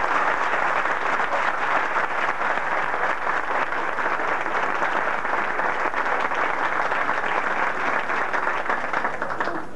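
Concert audience applauding steadily, dying down near the end.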